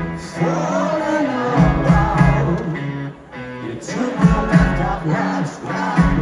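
Live rock band playing in a stadium, heard from the crowd: electric guitars, bass and drums with a male lead vocal over them.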